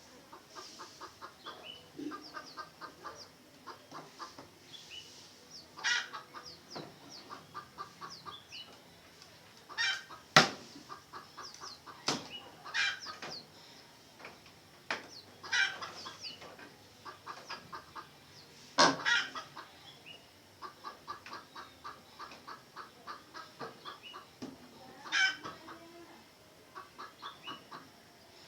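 Red junglefowl clucking in quick rhythmic trains, again and again, mixed with high thin chirps and several sharp loud knocks.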